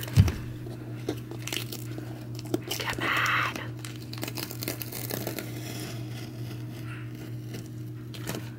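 Painter's tape being slowly peeled off painted baseboard trim, a crackly, tearing sound with a louder rasp about three seconds in. A low thump sounds right at the start.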